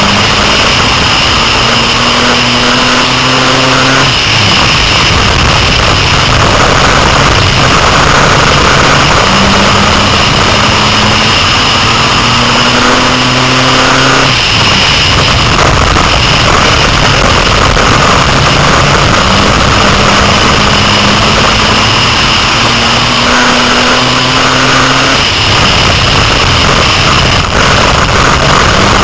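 Six-cylinder dirt-track race car's engine, heard loud from inside the car. Its pitch climbs as it accelerates down each straight and falls back when the driver lifts for the turns, three times over, with a rough noise of road and wind underneath.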